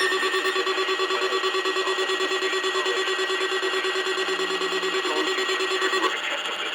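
Weather radio alert alarm: a rapidly pulsing electronic alarm tone, about five pulses a second, set off by the NOAA Weather Radio warning tone. It cuts off about six seconds in, leaving radio hiss.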